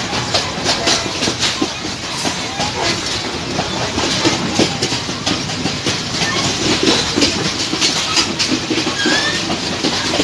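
Passenger train running at speed, heard through an open carriage window: a steady rumble and rush with an irregular clatter of the wheels over the rails.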